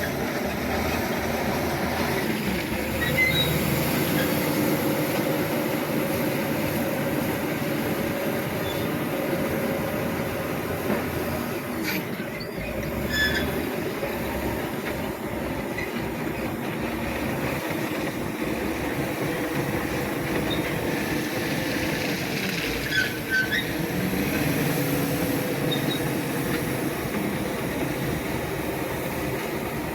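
Shantui SD16E crawler bulldozer working: the diesel engine runs steadily under load while the steel tracks clank and squeal, with short high squeaks now and then.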